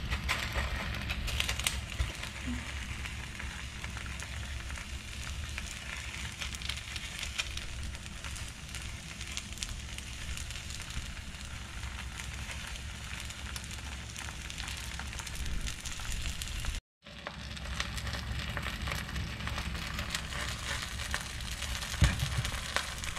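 Batter-coated perilla leaves sizzling and crackling steadily in hot oil in a frying pan. The sound breaks off for a moment about two-thirds of the way through.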